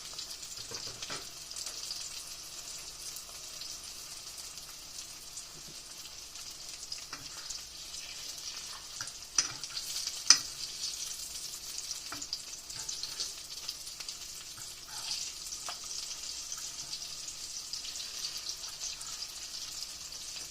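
Breaded green tomato slices frying in hot oil in a pan: a steady sizzle with dense crackling. Two sharp clicks stand out about nine and ten seconds in.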